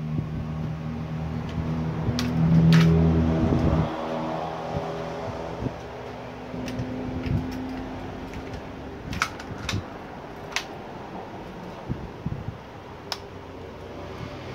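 Sharp plastic clicks and clacks of an M1911 airsoft pistol being drawn from and pushed back into a Fobus EMC polymer paddle holster: a pair of clicks about two seconds in, a cluster around nine to ten seconds, and a last one near thirteen seconds, over a steady hum.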